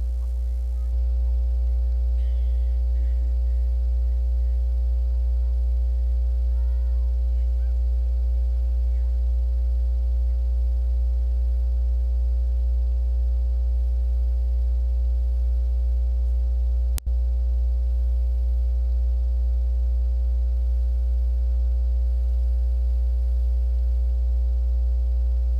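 Deep, steady electrical hum with a few faint steady higher tones over it. It cuts out for an instant about seventeen seconds in.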